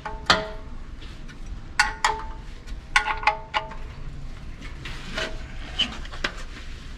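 Irregular sharp metallic clinks of hand tools and metal parts being handled, around nine in a few seconds, each ringing briefly at the same pitches.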